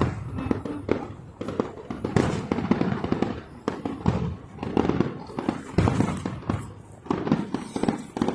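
Fireworks going off in a rapid barrage: overlapping booms and cracks one after another, with some of the loudest about two, five and six seconds in.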